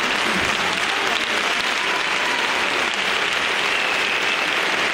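Audience applauding steadily, a dense even clatter of many hands.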